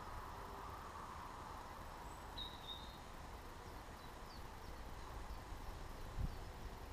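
Faint outdoor background: a steady low rumble and hiss, with a few short, high bird chirps around the middle and a single low thump near the end.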